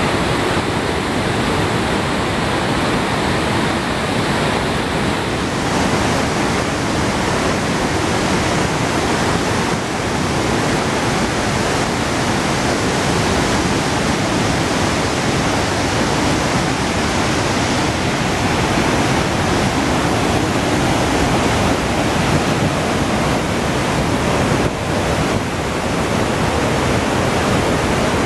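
Iguazu Falls' water pouring down: a steady, dense rushing roar that never breaks.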